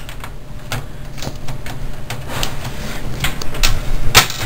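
Irregular clicks and knocks over a steady low hum, with a loud thump about four seconds in.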